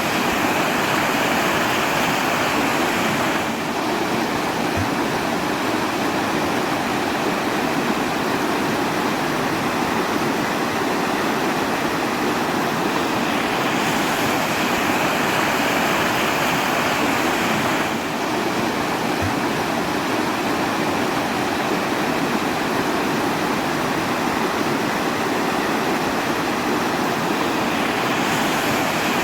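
Steady rushing water, an even full hiss whose tone brightens and dulls slightly a few times.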